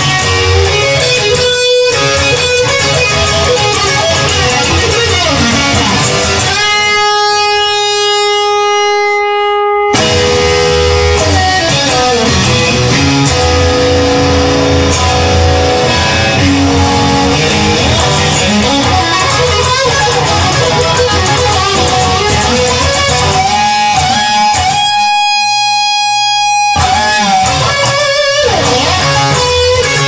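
Electric guitar music with a full, dense band sound. Twice, about a quarter of the way in and again near the end, a held chord rings on with the low end dropping out before the full band comes back.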